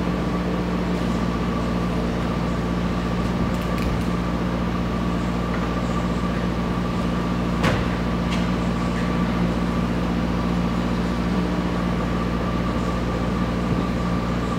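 An engine running steadily at idle: a low hum with a faint steady whine above it. A single sharp click about eight seconds in.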